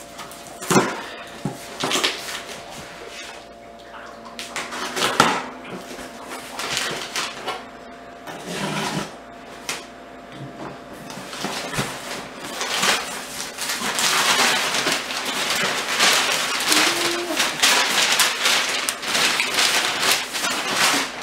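A box cutter slitting the tape on a large cardboard shipping box, with scattered knocks and scrapes of the cardboard. From about the middle on comes steady rustling and crinkling of packing paper being pulled out of the box.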